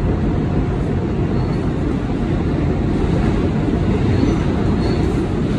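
New York City subway car in motion, heard from inside the car: steady, heavy running noise, with a few faint, brief high squeaks.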